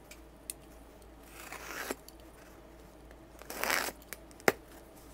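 Cardboard shipping box being opened by hand: two short tearing sounds about a second and a half and three and a half seconds in, with a few sharp clicks, the loudest about four and a half seconds in.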